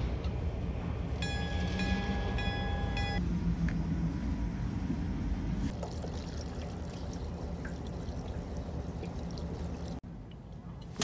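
Fuel pouring from a can spout through a plastic funnel into the fuel tank of an antique Lockwood outboard, a steady trickle and gurgle. Earlier, about a second in, a high squeaky tone sounds in a few short runs for about two seconds.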